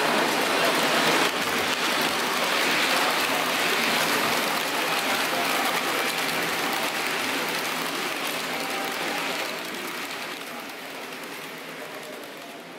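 H0-scale model train running past on the layout: a continuous fine rattle of metal wheels on the track from the long rake of coaches, fading away over the last few seconds as the train moves off.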